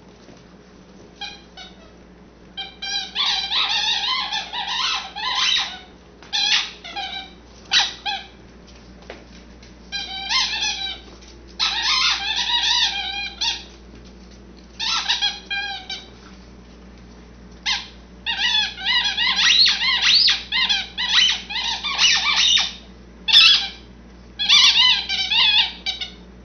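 A bulldog puppy chewing a squeaky ball toy. Each bite sets off rapid runs of high squeaks that last one to three seconds, with short pauses between.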